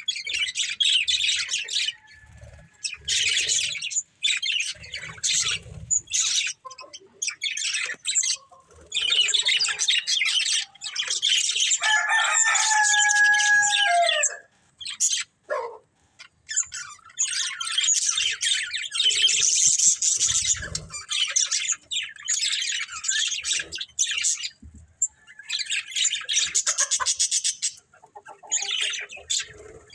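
Budgerigars chattering and chirping in a busy warble of rapid, scratchy high notes, broken by short pauses, with one held whistled note lasting about two seconds near the middle.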